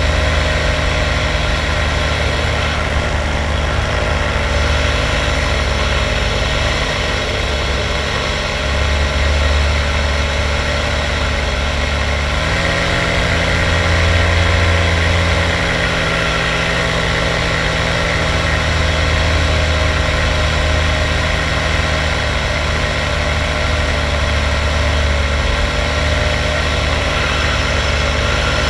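Engine of an open ultralight aircraft running steadily in flight, mixed with the rush of air. Its pitch rises slightly about twelve seconds in as the engine speeds up a little.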